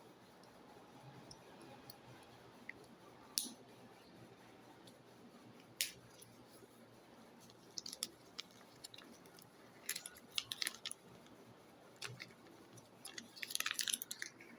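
Kinder Joy egg packaging being handled and unwrapped: scattered crinkles and plastic clicks, single ones at first, then busier clusters in the second half and a flurry near the end.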